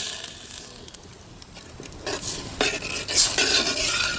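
A ladle stirring and scraping in a cooking pot of rasam just poured over hot tempering, in scattered strokes from about two seconds in.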